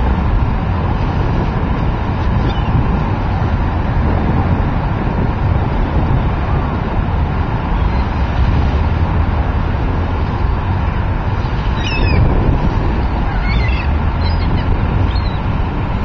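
Steady low rumble of wind on the microphone and traffic, with a few short calls from the water birds being fed near the end, each sliding down in pitch.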